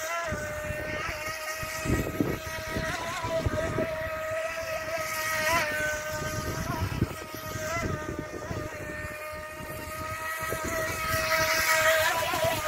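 Electric motor of a radio-controlled model speedboat whining at a nearly steady pitch as the boat runs, with small pitch wobbles, and wind buffeting the microphone.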